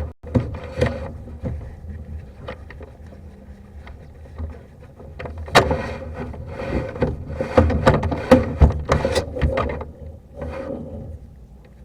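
Irregular knocks, taps and scraping from equipment being handled, sparse at first and coming thick and fast from about halfway through for some four seconds.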